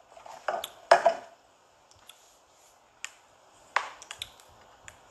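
A series of sharp clicks and taps, with short, louder knocks about one second in and again near four seconds in.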